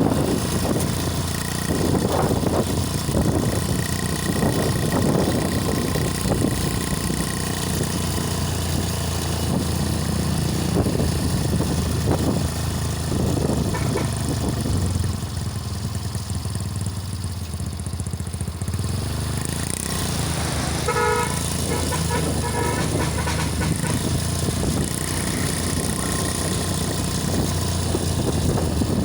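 Road traffic and wind rumbling steadily while riding along a road, with passing motor vehicles such as motorcycles; about two-thirds of the way in, a vehicle horn gives a quick series of short toots.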